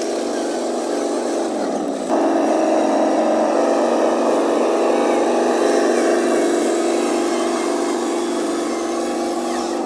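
Radio-controlled truck's motor running steadily with a pitched hum, getting louder about two seconds in as it drives on.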